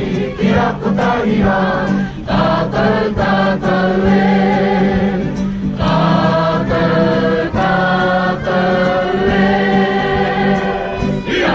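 Background music: a choir singing over a steady low drone, with a beat of short percussive strikes.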